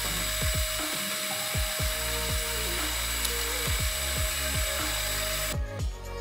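Metal lathe running with a steady whine and hiss as it spins a threaded steel handle, then shutting off about five and a half seconds in. Electronic background music with a regular kick-drum beat plays over it.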